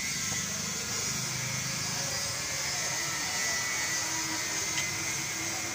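Steady machine-like hum and hiss, with faint voices in the first couple of seconds and a single light click near the end.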